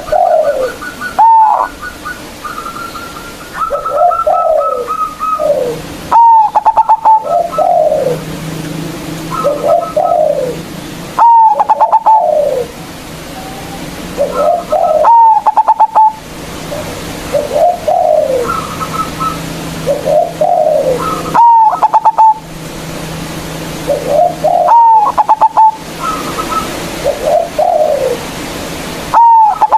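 Zebra dove (perkutut) singing its loud cooing song over and over, a phrase every few seconds. Each phrase starts with a sharp note, runs into a quick rattling stutter and ends in a few falling coos. Fainter short chirps come in between.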